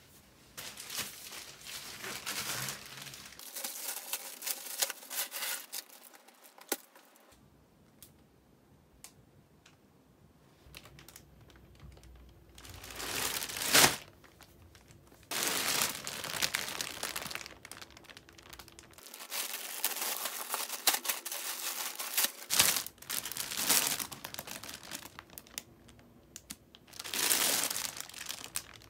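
Plastic packaging crinkling and rustling in several bouts separated by short pauses, with some tearing, as parcels in plastic mailer bags and plastic wrap are opened and handled.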